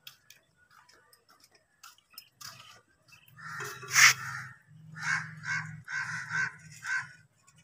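A loud sharp metal clank about four seconds in, as the plunger rod of a hand water pump is worked down into its cylinder, followed by a run of five or six harsh animal calls, about two a second.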